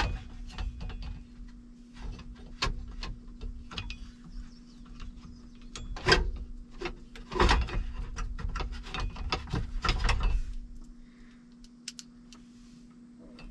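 Screwdriver and hand work on a truck's dashboard while the air brake valve is fitted: scattered clicks, knocks and plastic rattles, loudest about six and seven and a half seconds in, over a faint steady low hum.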